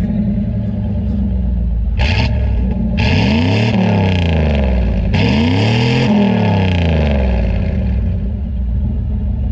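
Chevrolet 305 TBI small-block V8 running and revved: its pitch rises and falls twice in the middle, with a short blip about two seconds in, then it settles back to idle.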